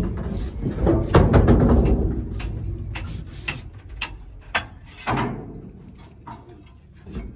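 Irregular knocks and clatter on a truck's wooden plank deck, with footsteps on the planks. The sharp knocks come a second or so apart, and the clatter fades after the first couple of seconds.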